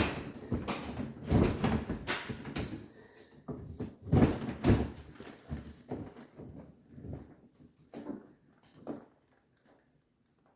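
Freezer drawer of an LG French door refrigerator being tugged and worked on its rails, giving irregular plastic knocks, scrapes and rattles; one side of the drawer is binding and will not come out freely. The knocking thins out and stops near the end.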